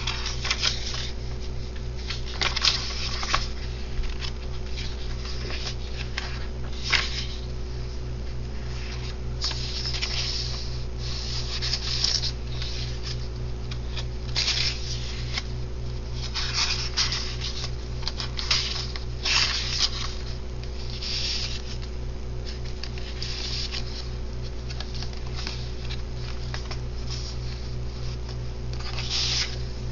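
Paper and cardstock pages of a handmade journal being turned and handled, rustling and sliding in irregular bursts, over a steady low hum.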